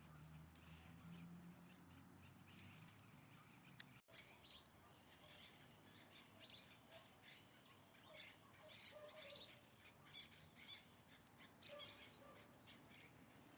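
Small birds chirping faintly. After about four seconds many short, high chirps overlap. Before that there is a low hum with only a few scattered chirps.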